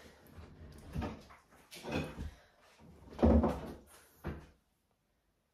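Four dull knocks with a deep thud to them, about one a second, the third the loudest; the sound then cuts off suddenly about a second before the end.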